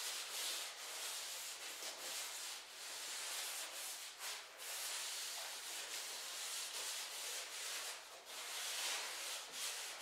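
Tack cloth being wiped lightly over the bare cedar-strip wood of a canoe hull to lift dust before epoxying: a soft, continuous rubbing hiss in long strokes with brief breaks between them.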